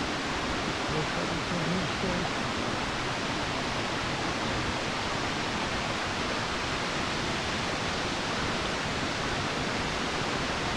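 Steady rush of a small mountain creek running over rocks.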